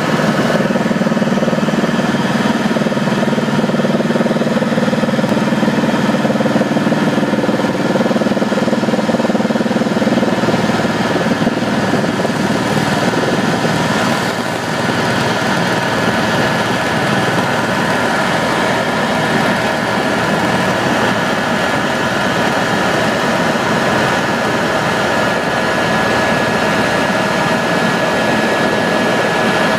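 Aircraft engines running steadily as heard inside the cabin while the plane taxis, with a steady high whine over the engine noise. A deeper hum is strong for the first ten seconds or so, then eases.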